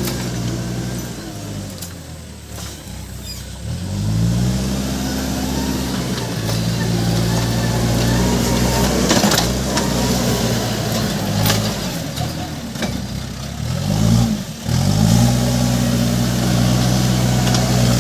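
Case 580 Super M backhoe loader's diesel engine revving up and down as it works, its pitch climbing about four seconds in, sagging and rising again several times, dipping briefly near the end and revving back up. A few short knocks come through in the middle.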